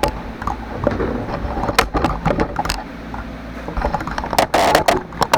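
Scattered clicks, knocks and clatter of metal parts and tools being handled at a bench vise, with a short louder noisy rattle about four and a half seconds in, over the steady hum of a shop fan and air conditioner.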